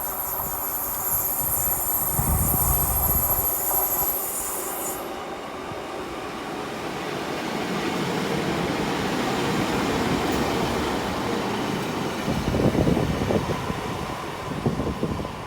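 Two-coach diesel multiple unit running into the station platform, with a steady rumble of engine and wheels on the rails. A thin high squeal is heard for the first few seconds.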